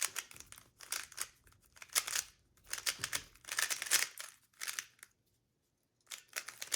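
A 3x3 Rubik's cube being turned fast by hand during the first-two-layers (F2L) stage of a speed-solve: plastic layers clicking and clacking in quick bursts, with a pause of about a second near the end before the turning starts again.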